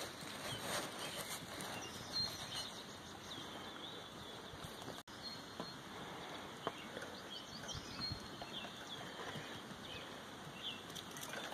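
Outdoor ambience of small birds chirping repeatedly in short, quick calls, with a couple of light knocks.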